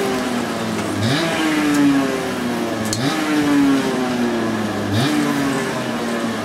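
Small two-stroke kart engine revved in repeated throttle blips about every two seconds: the pitch jumps up quickly, then sags slowly as the revs fall.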